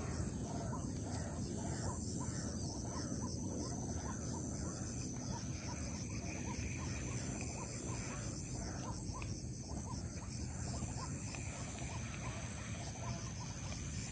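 Pond-side dawn ambience: a steady high insect drone with short chirping calls from a small animal repeating about twice a second, over a low background rumble.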